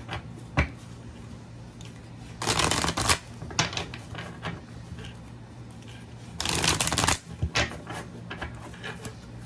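A deck of oracle cards shuffled by hand, with two longer bursts of shuffling about two and a half and six and a half seconds in, and light flicks and taps of the cards between them.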